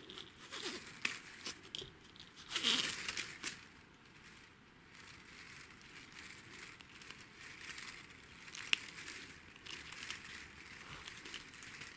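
Close crinkling and rustling of paper floral tape being stretched and wound around a bundle of wires, with scattered small clicks from the wires. The handling is busiest in the first few seconds, and there is one sharp click about nine seconds in.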